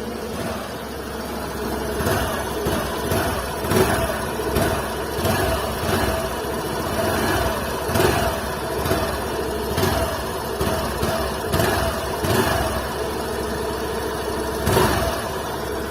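Suzuki Access 125 scooter's single-cylinder four-stroke engine at idle, its throttle blipped over and over from about two seconds in, roughly once a second, each blip a short rise in the exhaust note before it drops back. One last blip comes near the end, then it settles at idle.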